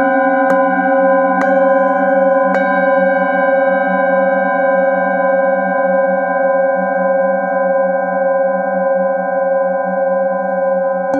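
Brass singing bowls struck with a padded mallet: three light strikes in the first three seconds, then several bowls ringing on together in layered steady tones with a slow wavering beat.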